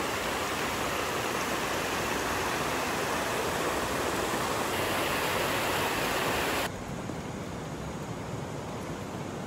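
Water rushing over stones where a small channel spills into the river, a steady rush. About two-thirds of the way through it cuts off abruptly and a quieter steady hiss follows.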